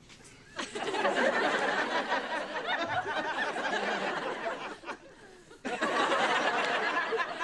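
Studio audience laughing in two long waves: the first swells up about half a second in and dies away near five seconds, and the second breaks out suddenly just before six seconds.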